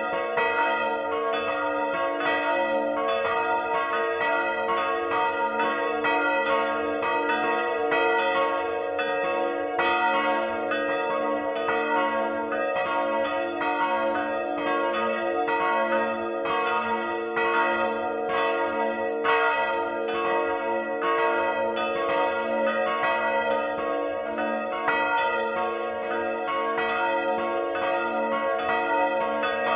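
Several large bronze church bells swinging and ringing together in a full peal, their strikes overlapping in a steady, unbroken stream, heard close up in the belfry.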